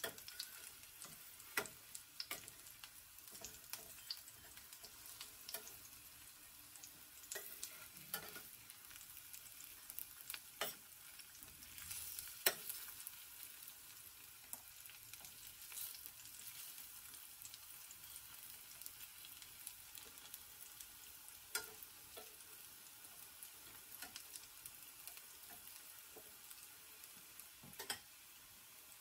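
Oil sizzling faintly and steadily in a stainless steel frying pan as egg pancakes with greens fry, with scattered sharp clicks and pops, more of them in the first half. A metal spatula works against the pan in the first seconds.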